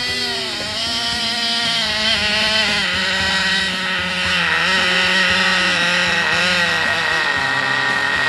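RC snowmobile's motor and track drive whining, the pitch rising and falling again and again as the throttle is worked.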